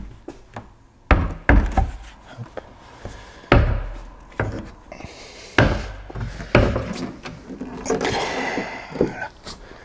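A lightweight fibreglass car bonnet knocking and bumping as it is carried and handled, about eight irregular hollow thuds, with a stretch of rubbing near the end.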